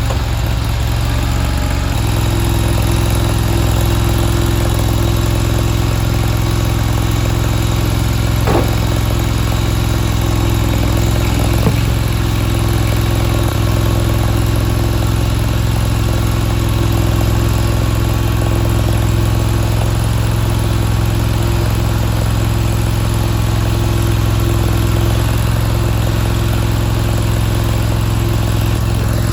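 A mini skid steer's 23 hp RATO V-twin gasoline engine running steadily, settling to a slightly different steady note about two seconds in, with a couple of faint knocks near the middle.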